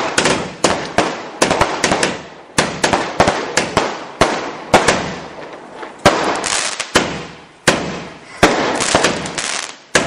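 Weco Firefighter firework going off: a rapid string of sharp bangs from its shells bursting overhead, about two or three a second, each trailing off before the next.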